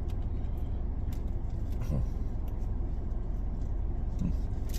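A car running, a steady low rumble with a few faint clicks over it.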